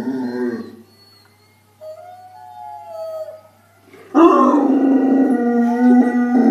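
A large dog howling: a howl dies away in the first second, a fainter wavering tone follows, then about four seconds in a loud, long howl starts and is held, wavering in pitch.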